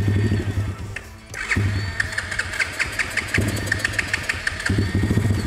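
Pitster Pro 140 cc pit bike engine running rough on butane fed from a bottle through an IV line, sagging three times almost to a stall and each time catching and picking back up.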